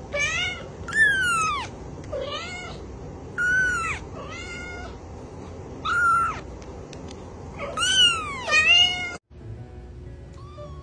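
Kitten meowing repeatedly: about seven high, piercing meows, some rising then falling in pitch. They cut off suddenly near the end.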